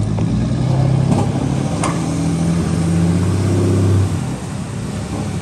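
Pickup truck engine running barely above idle while it hauls a 50-foot cabin cruiser on its trailer up the boat ramp: a steady low hum that drops away about four seconds in, with a couple of light knocks.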